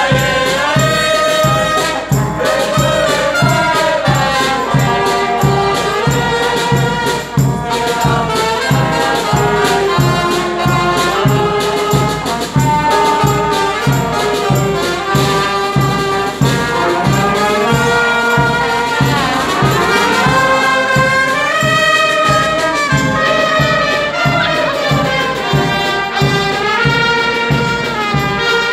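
Street brass band of trumpets, saxophones and a sousaphone playing a lively tune over a steady beat.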